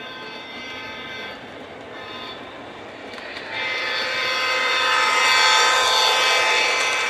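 Lionel LionChief U36-B model diesel locomotive sounding its electronic horn while pulling a freight train past: a long blast ending about a second in, a short toot about two seconds in, then a louder long blast from about three and a half seconds on. Under the horn is the running noise of the train on the track, growing louder as it comes closer.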